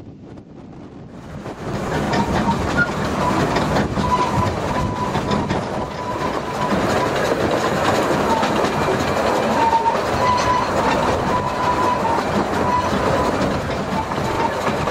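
Narrow-gauge steam train of the Groudle Glen Railway heard from an open carriage: wheels running and clattering on the track, with a thin squeal from the wheels on the curves coming and going. Faint wind before the train sound cuts in about a second and a half in.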